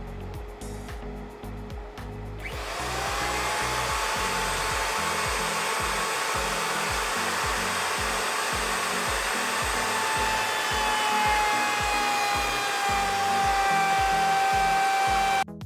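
Router spinning a chamfer bit in a router table starts about two and a half seconds in, whining up to speed and then running steadily while a hardwood cutting board is fed past the bit. Its pitch sags a little under the cut near the end, and it stops suddenly. Background music with a steady beat plays underneath.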